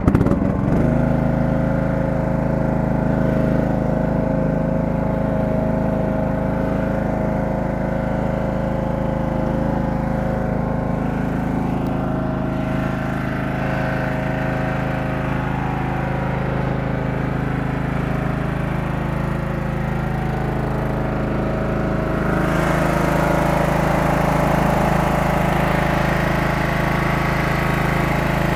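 Kawasaki FC540V single-cylinder engine of a John Deere 180 lawn tractor running steadily. About 22 seconds in, the sound turns brighter and a little louder.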